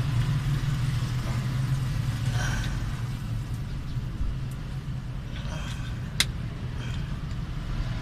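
Light metallic clicks and scrapes from long-nose pliers working the wire float arm of a fuel gauge sending unit, with one sharp click about six seconds in. A steady low mechanical hum runs underneath.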